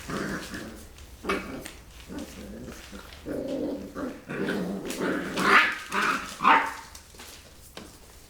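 Rottweiler puppies play-fighting, growling in rough stretches, then two loud, sharp barks about a second apart in the second half.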